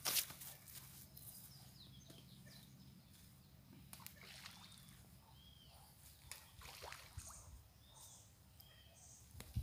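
Balls of fishing groundbait landing in a lake with faint, distant splashes, after a brief loud rustle right at the start. Faint bird chirps sound in the second half.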